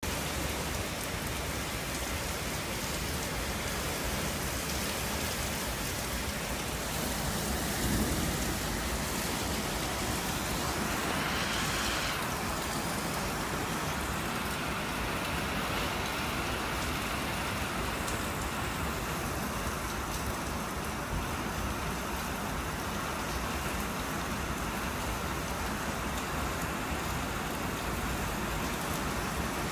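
Heavy storm rain and gusting wind: a steady rushing hiss, with a brief louder swell of hiss about eleven to twelve seconds in.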